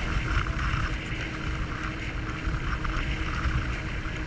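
Jet ski engine running steadily under way, with the rush of wind on the microphone.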